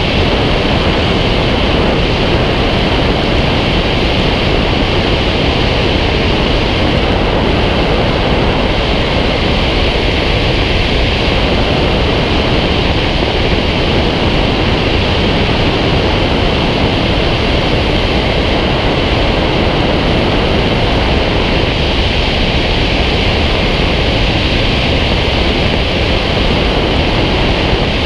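Steady, loud rush of airflow over a wing-mounted camera's microphone on a glider in flight, an even roar with no breaks.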